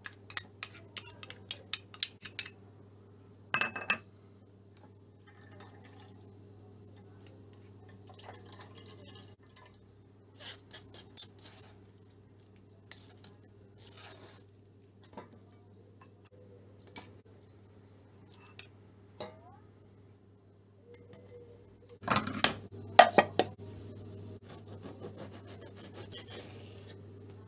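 Metal spoon and glass bowl clinking and tapping against a stainless-steel mesh sieve while grated onion is pressed and drained: a quick run of taps at the start, scattered clinks after, and a couple of louder knocks near the end. A low steady hum sits underneath.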